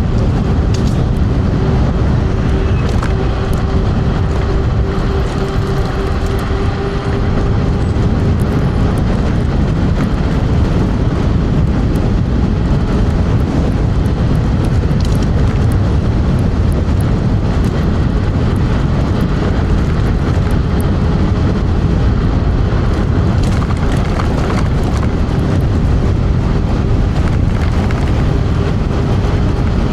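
Heavy wind rushing and buffeting over a clip-on mic on a TRBK M2 electric scooter ridden at about 40 mph into strong wind. A faint steady whine, likely from the scooter's motor, sits under the wind for the first several seconds and comes back near the end.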